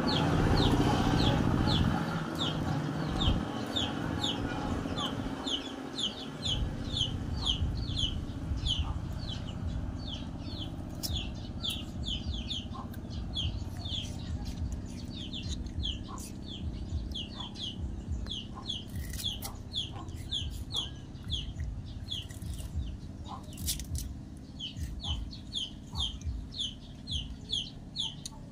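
Chicks peeping over and over, short high falling peeps at about two to three a second, with a low rumble underneath and a few soft clicks.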